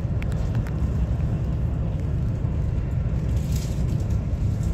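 Steady low rumble and hiss inside the passenger cabin of the Chinese-built Whoosh high-speed train cruising at about 350 km/h.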